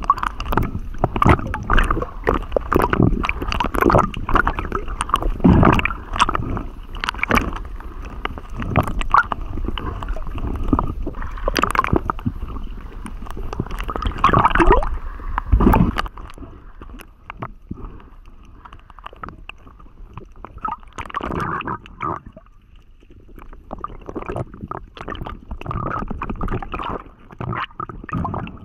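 Water gurgling and sloshing against an underwater action camera's waterproof housing as a spearfisher swims and dives, with irregular knocks and clicks. It is busier and louder for the first half and quieter after about sixteen seconds.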